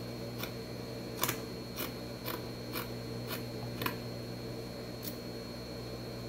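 Fabric scissors snipping through the knit polo-shirt fabric, trimming the seam allowance close to a fresh seam. There is a quick series of about eight sharp snips roughly every half second, then one more a little later, over a steady low hum.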